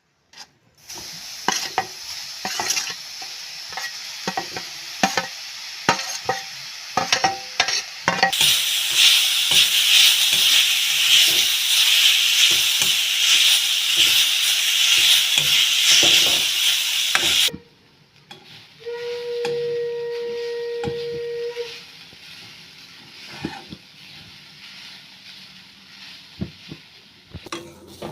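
Grated coconut frying in a hot pan, stirred with a spatula: repeated scraping clicks over a sizzle. The sizzle grows much louder about 8 seconds in and drops off suddenly about 17 seconds in. A steady high tone sounds for about three seconds near 19 seconds, then quieter stirring follows.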